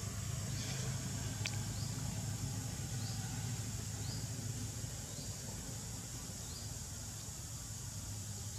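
Outdoor ambience: a steady high-pitched insect drone, with a short chirp repeating about once a second and a low steady hum underneath.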